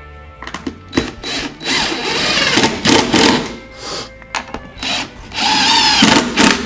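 DeWalt cordless impact driver driving wood screws into plywood, in two runs of a second or two each, its motor pitch wavering as the screws bite.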